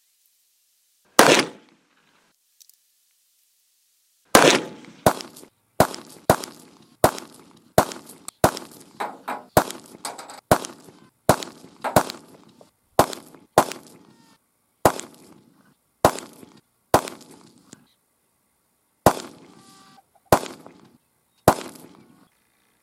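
Repeated .45 ACP pistol shots, each a sharp crack with a short echoing tail. There is one shot about a second in and another about four seconds in, then a quick string of shots roughly one every half second to a second.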